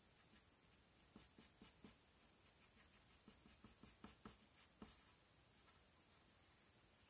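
Pencil drawing on paper: a quick run of short, faint scratching strokes between about one and five seconds in.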